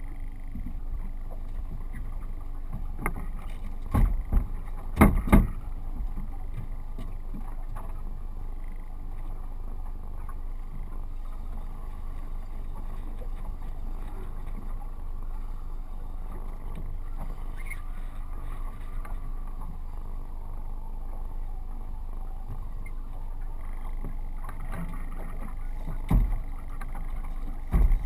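Steady wind and water noise around a small drifting fishing boat, broken by a few loud knocks on the boat: a cluster about four to five seconds in, and two more near the end.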